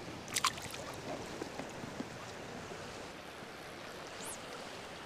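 Creek water flowing steadily around a wading angler, with a couple of short splashes about half a second in.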